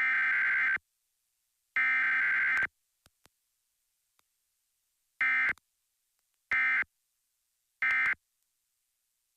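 Emergency Alert System SAME digital header: screeching data-tone bursts of about a second each, the last two of a set of three spaced about a second apart. After a pause of a couple of seconds come three short end-of-message bursts at about one-second intervals, which close the alert.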